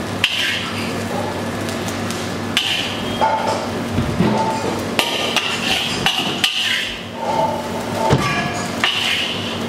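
Metal ladle clanging and scraping against a metal wok while fried rice is dished out. There are several sharp clangs a second or two apart, each with a short metallic ring, over a steady low hum.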